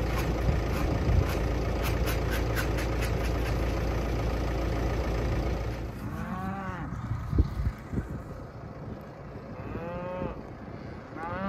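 A tractor engine runs steadily for about the first six seconds, then drops away. Cattle then moo: two long calls, a second or so after the change and again about ten seconds in, with another starting at the very end.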